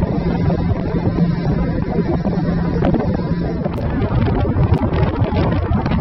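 Motorboat running on the water, with wind buffeting the microphone. A low hum from the boat fades about halfway through, and scattered knocks follow.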